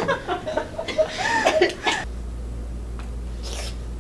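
Women laughing for about two seconds, then an abrupt cut to quiet room tone with a steady low hum.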